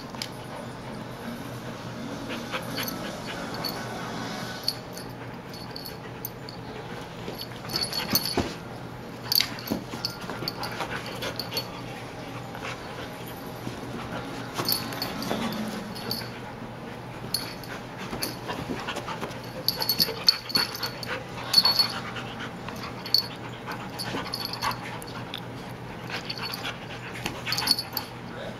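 A border collie and a Siberian husky puppy play-wrestling: the dogs' breathy vocal sounds mixed with scuffling, and irregular sharp clicks and short loud peaks throughout.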